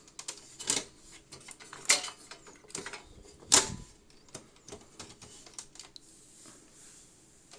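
Drive caddy being slid into a desktop PC case and seated: a series of sharp clicks and knocks, the two loudest about two and three and a half seconds in, then lighter taps.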